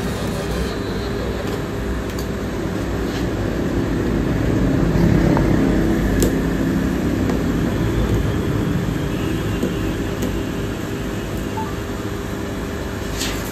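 Steady low background rumble that swells for a few seconds about halfway through, with a few faint clicks and scrapes as a box cutter slits the packing tape on a cardboard box.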